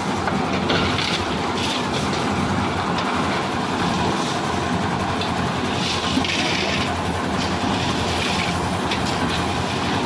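Lift concrete mixer machine running steadily, its drum turning with a constant rattling rumble. Short rasping noises come in a few times over it.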